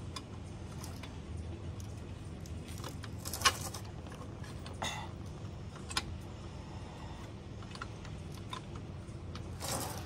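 Scattered metal clinks and knocks as the auto throttle kit's protective box is worked into place under a John Deere 2025R compact tractor, catching on the surrounding linkage; the sharpest knock comes about three and a half seconds in, with a longer burst of handling noise near the end.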